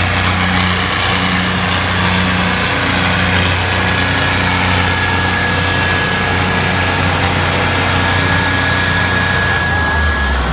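Two diesel tractor engines, a John Deere 5050D and a Mahindra Arjun 605, running hard and steady under heavy load as they pull against each other in a tug-of-war.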